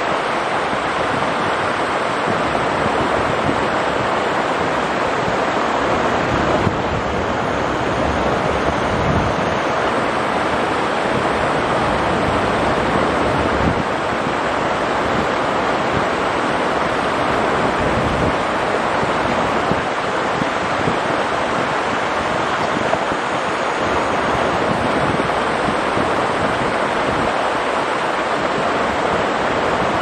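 Rushing water of a rocky mountain stream, a steady full rush of water over stones.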